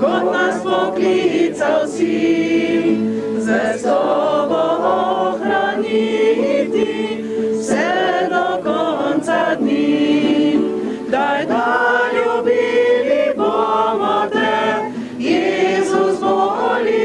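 A group of men and women singing a Slovenian hymn to Jesus together, continuously and at full voice.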